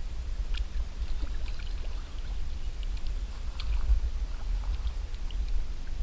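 Water splashing and sloshing as a hooked carp thrashes and rolls at the surface beside a small boat, with many small scattered splashes over a steady low rumble.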